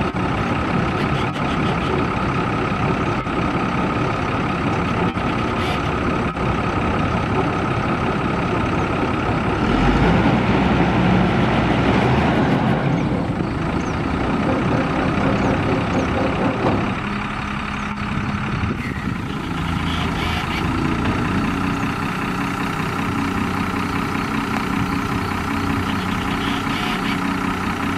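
The Caterpillar 3116 inline-six diesel of a 1992 GMC TopKick feed truck runs steadily while working the truck's unloading auger. A steady high whine rides over the engine until about ten seconds in, and the sound thins out again near the seventeen-second mark.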